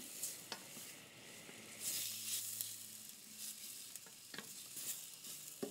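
Floured rabbit pieces and sliced onion sizzling as they brown in hot olive oil in a copper sauté pan. A slotted wooden spatula stirring them knocks against the pan a few times.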